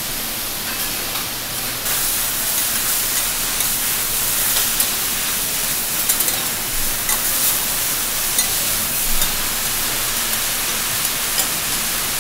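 Water spinach and garlic sizzling on a hot teppanyaki griddle: a loud, steady hiss of steam that gets louder about two seconds in, when the wet greens go on, with a few clicks of the metal spatulas.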